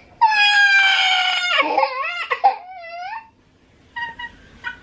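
Toddler girl crying in a meltdown: one long, high-pitched wail, slightly falling, for about a second and a half, then wavering sobs that die away about three seconds in.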